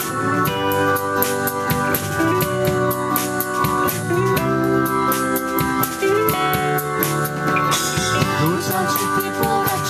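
Instrumental break of a pop song: sustained chords over a steady drum beat.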